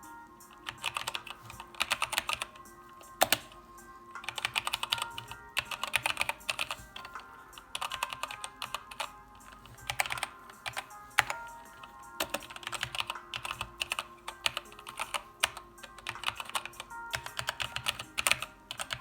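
Typing on a Keychron K4 mechanical keyboard: bursts of rapid clacking keystrokes with short pauses between them, and a few single sharper key hits standing out, one about three seconds in and another about eleven seconds in.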